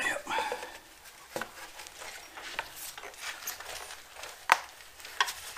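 Gloved hands working a rubber air-intake hose onto a mower engine's air cleaner: rubbing and rustling of rubber and nitrile gloves with scattered small clicks and knocks, and one sharp click about four and a half seconds in.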